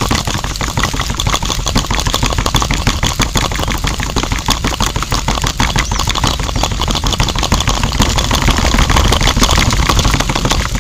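Small electric motor of a homemade miniature mixer running steadily and turning its drum, with a fast, even rattling clatter from the drive and drum.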